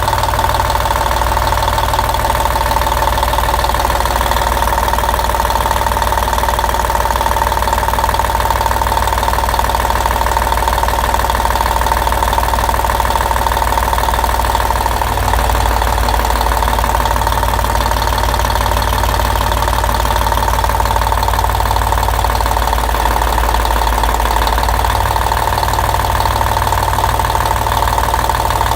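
YaMZ-236 V6 diesel engine running at a steady speed with a knock whose cause is unknown, since the injectors have been checked and the injection pump, heads, valves, pistons and liners have all been redone.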